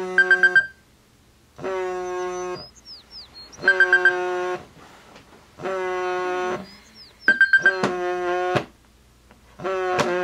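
iPhone alarm going off: a bright, pitched chime repeating about every two seconds, each burst about a second long, some with a quick flutter of high beeps. Short bird-like chirps sound in the gaps.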